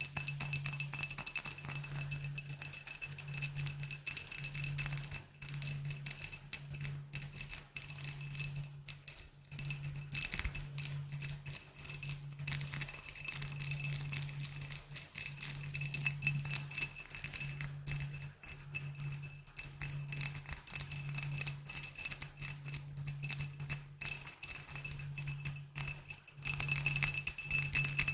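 Rapid, dense tapping on glass bottles, the glass ringing at a couple of clear high pitches, with short pauses and louder tapping near the end. A soft low hum pulses underneath about once a second.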